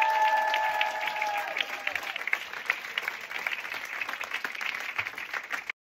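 Theatre audience applauding, with a few voices holding long cheering calls over the first second and a half. The clapping thins a little and cuts off abruptly near the end.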